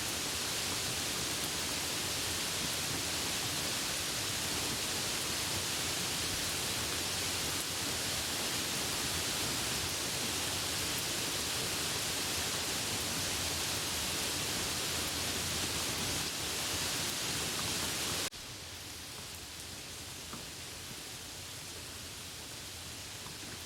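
Steady hiss of heavy rain falling. About 18 seconds in, it drops suddenly to a quieter, steady rain.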